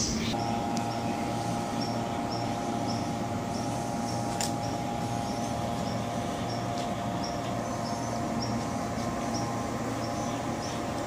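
Hyundai Rotem HRCS2 electric train humming steadily at the platform, several steady tones together, with a faint high chirp repeating about twice a second.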